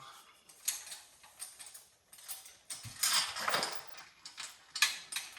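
Metal chain being handled and pulled through: irregular clinks and rattles of the links, with a longer, louder rattle about three seconds in.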